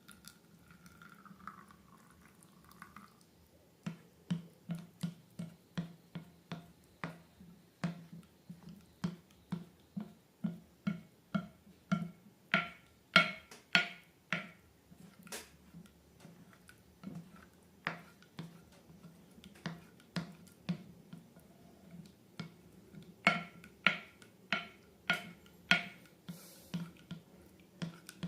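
Slime being pressed and squished by hand, giving a run of sharp sticky clicks and pops about twice a second that begins a few seconds in and gets louder in two stretches.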